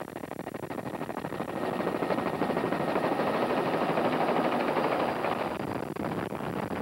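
Helicopter rotor and engine running in flight, heard from aboard, with a fast, even chopping throb that grows louder about two seconds in.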